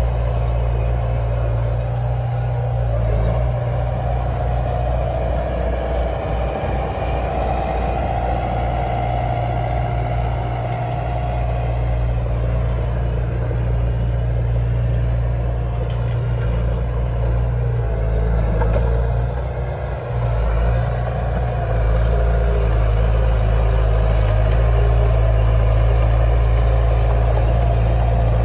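Heavy diesel engine of earthmoving machinery running steadily with a strong low hum. It dips briefly about twenty seconds in, then runs louder for the rest.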